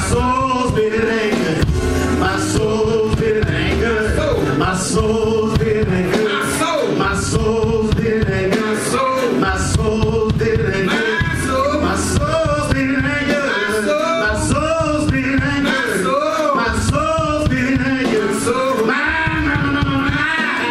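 Live gospel music: a man singing over held chords and a steady beat with cymbal strokes.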